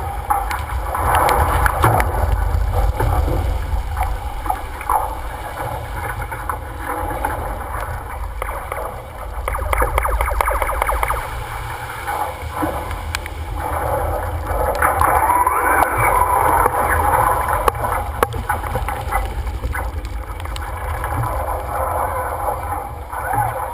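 Wind buffeting the microphone and water rushing and gurgling along the hull of a sailing yacht under way in a strong breeze.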